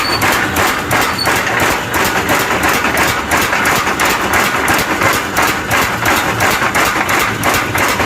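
Electric power hammer in a blacksmith's forge, pounding iron in fast, even blows, several a second without a break.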